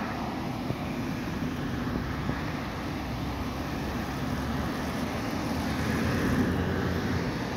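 Road traffic passing close by: cars and a van driving past with steady engine and tyre noise.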